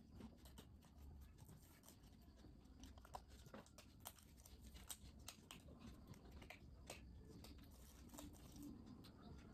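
Near silence: room tone with faint, scattered small clicks and rustles.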